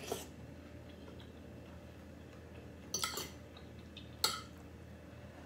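Metal spoon and fork clinking and scraping against a dinner plate while eating: a few short, separate sounds, the sharpest click a little after four seconds in.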